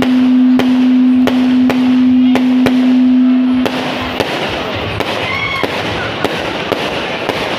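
Aerial fireworks going off: a string of sharp bangs about two a second. Under the first half runs a loud steady low tone, which stops about three and a half seconds in. After it the bangs go on over a quieter, rougher background noise.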